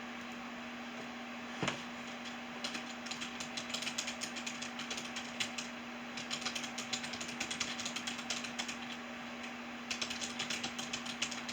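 Typing on a computer keyboard: a single sharp click, then three runs of rapid key clicks with short pauses between them, over a steady low hum.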